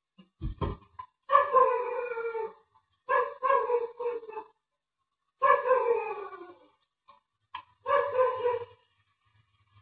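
A dog crying out in four long, slightly falling yelps, preceded by two dull thumps about half a second in.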